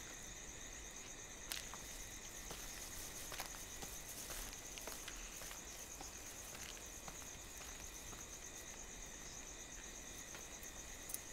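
Faint, steady chorus of crickets chirping in a high, rapid pulse, with a few soft ticks now and then.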